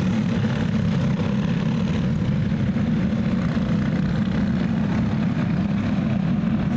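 A pack of dirt-oval racing karts with single-cylinder four-stroke clone engines running together, a steady massed engine drone.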